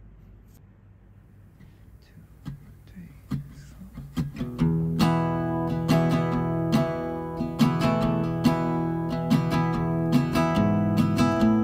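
Background music: an acoustic guitar song starting up, with a few plucked notes after a quiet opening, then steady strummed guitar from about four and a half seconds in.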